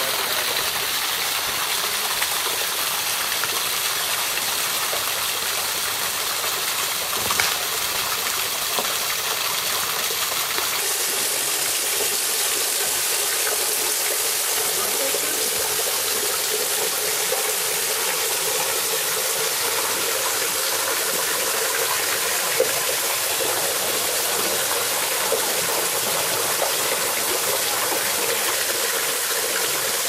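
Steady rush of a small waterfall, an even hiss of falling water. A single light knock comes about seven seconds in.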